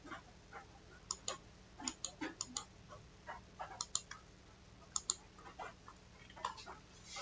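Computer mouse clicking: irregular light clicks, with sharper paired press-and-release clicks about once a second.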